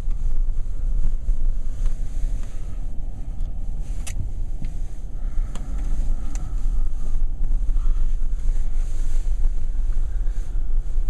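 Steady low rumble of a vehicle driving, with a few faint clicks.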